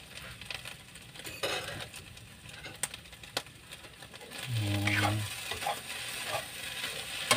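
Metal spatula and fork stirring and scraping flaked sardines in a nonstick frying pan on a gas flame, with a light sizzle and scattered sharp clicks of the utensils against the pan. A short hum of a man's voice about five seconds in.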